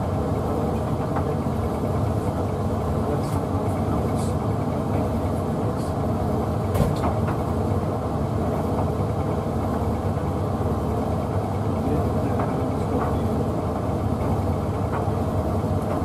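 Hoover Visiontech Infinity VTV581NC tumble dryer running on its Rapid 40 drying programme: a steady hum of motor and fan as the drum tumbles a load that includes a bath mat. A few light knocks come from the load inside the drum, the loudest about halfway through.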